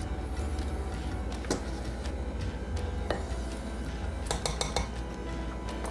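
Serving utensil clinking against the crockpot and a dinner plate as potatoes are dished out: a few separate clinks, then a quick run of them past the middle, over a steady low hum.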